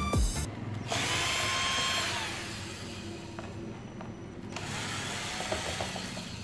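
Cordless drill-driver backing screws out of the base of an electric fan, its motor running twice: about a second in, winding down in pitch as it stops, and again past the middle.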